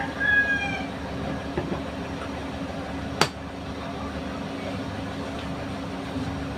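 Steady low hum and hiss of a kitchen background, with one sharp click about three seconds in.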